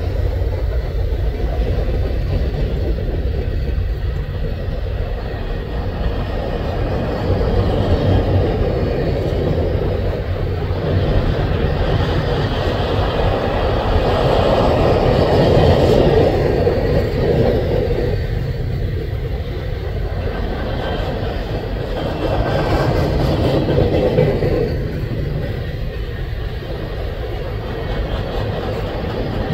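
Three-bay covered hopper cars of a freight train rolling past: a steady rumble of steel wheels on rail that swells and eases a little now and then.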